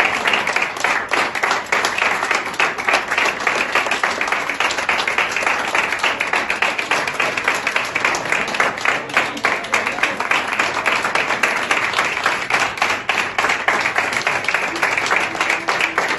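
A roomful of people applauding: dense, continuous hand clapping that holds steady throughout, with voices mixed in.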